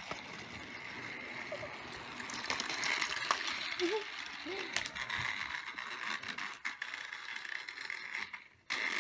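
Battery-powered Thomas toy train running on its plastic track: a small motor whirring steadily, with scattered clicks and rattles from the wheels and track. The sound drops away near the end.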